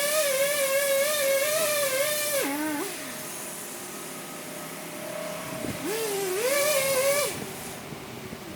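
Chainsaw running at high revs, then throttling down about two and a half seconds in. It revs back up around six seconds and drops away again just after seven seconds.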